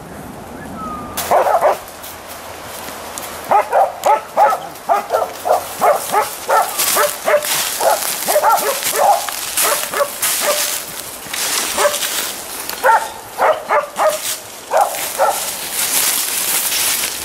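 Boar-hunting dogs barking in quick runs of short barks, a long run and then a shorter one a few seconds later.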